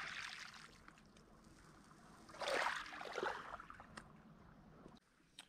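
Small waves washing up on a cobblestone beach, twice: once at the start and more strongly about two and a half seconds in, each fading out.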